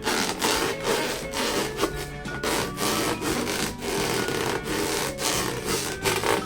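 Rubber balloon being rubbed and squeezed by hand, in repeated rubbing strokes about two a second.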